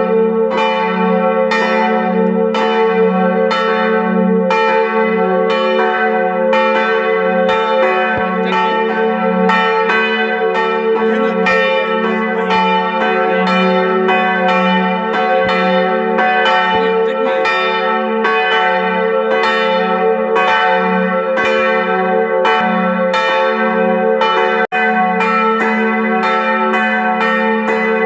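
Church bells ringing in a steady peal, strokes coming about three every two seconds over a lasting low hum. The sound cuts out for an instant near the end.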